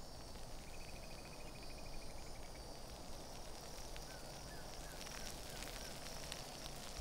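Dry grassland ambience: a low steady rustle with a short buzzing insect trill about a second in and a few short chirps around four seconds. From about five seconds a pulsing high insect call comes in, with scattered small clicks.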